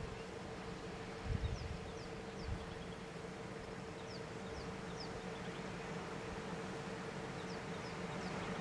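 Bush ambience: a steady insect drone with a low hum under it. Short, high, falling bird chirps come in little runs, and there are a couple of low bumps about a second and a half in.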